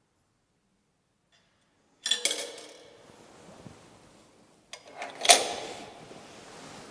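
Coins clinking as they drop into the metal offering box of a church votive-candle stand: a quick cluster of clinks about two seconds in, then two sharp clinks, the second the loudest, with soft rustling after.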